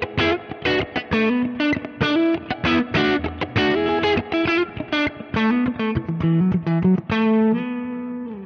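Leeky X25 electric guitar played with a clean amp tone (a Mesa/Boogie Lone Star model on a Neural Quad Cortex): a quick phrase of single notes and chords, ending on a held note that fades out near the end.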